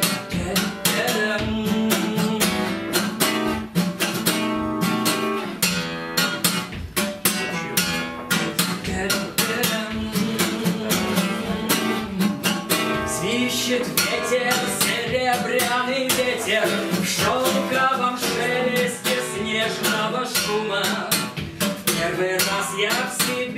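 Acoustic guitar strummed steadily in an instrumental break between verses of a song, chord strokes repeating at an even pace.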